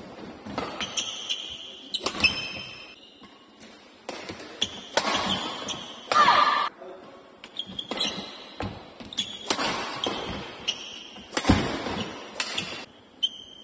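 Doubles badminton rally on an indoor court: sharp racket hits on the shuttlecock, irregularly spaced, and short high squeaks of shoes on the court floor. There is a louder burst about six seconds in.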